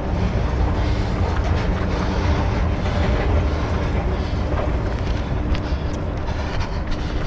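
Footfalls and movement noise of a running orienteer, picked up by a head-mounted camera as a continuous rumble with scattered knocks.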